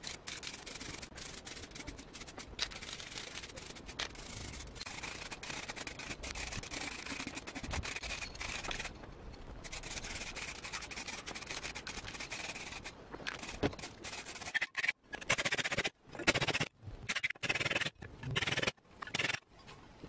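Aerosol spray can hissing as paint is sprayed: long steady sprays for the first part, then a run of short bursts with gaps between them in the last several seconds.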